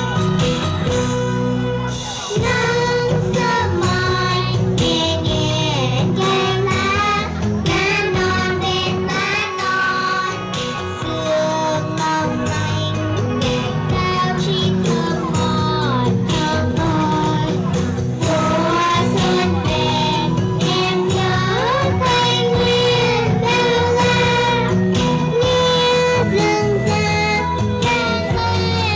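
A song played back with female voices singing the melody over a band accompaniment with a steady beat.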